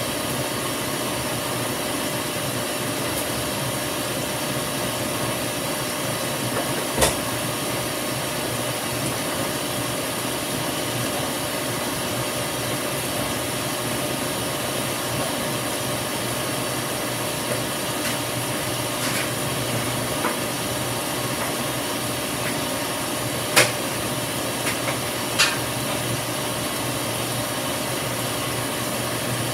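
Top-load washing machine filling: water pouring into the tub under the closed lid makes a steady rushing hiss. A few sharp knocks cut through it, one about a quarter of the way in and two more near the end.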